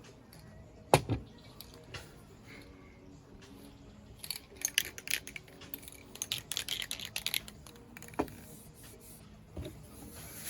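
Small hard objects being handled: a sharp knock about a second in, then a few seconds of quick clicks and clinks, and two softer knocks near the end.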